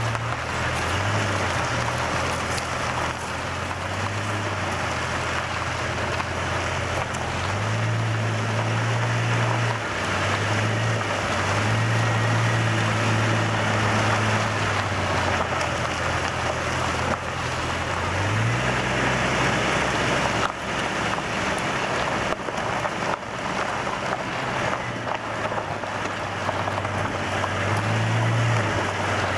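1998 Jeep Cherokee driving slowly off road: its tyres roll over a sandy, twig-strewn dirt track with a steady gritty hiss. Under it the engine runs with a low hum that steps up and down in pitch several times as the throttle changes.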